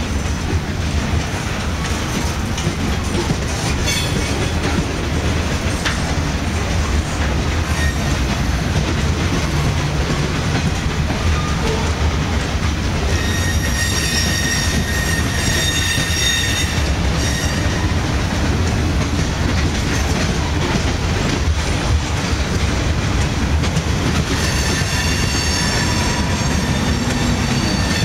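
Freight train of covered hopper cars rolling past, its wheels rumbling steadily on the rails. A high metallic squeal from the wheels rises over the rumble for a few seconds around the middle and again near the end.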